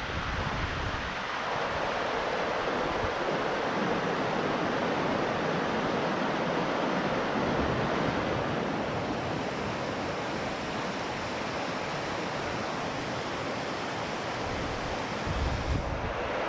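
Steady rush of a mountain river running over rocks and through a riffle, with a short gust of wind on the microphone near the end.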